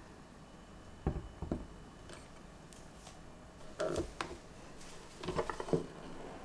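Plastic-bodied waffle maker being handled on a countertop: two knocks as it is set down, then a cluster of knocks and quick clicks as its wooden handles are gripped and its hinged lid is swung open.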